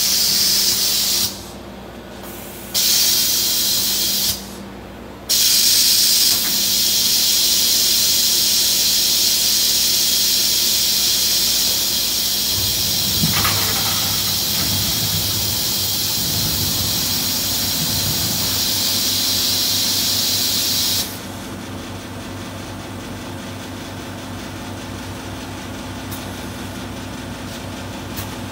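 Coin-operated ice vending machine bagging ice: a loud hiss cuts sharply on and off in two short bursts, then runs steadily for about fifteen seconds before stopping abruptly, over a low machine hum. A deeper motor hum joins about halfway through.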